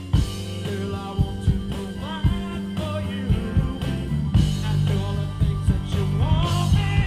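Live rock band playing amplified: electric guitars over bass and a drum kit with regular beats, and a singer's voice with pitch that slides up and down.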